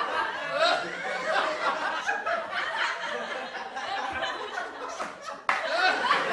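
People laughing and chuckling amid talk, with an abrupt cut in the sound about five and a half seconds in.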